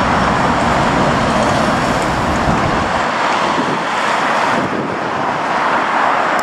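A steady loud rush of a Boeing 787 airliner coming in to land, mixed with heavy road traffic passing close by and wind on the microphone. The deep rumble fades about halfway through.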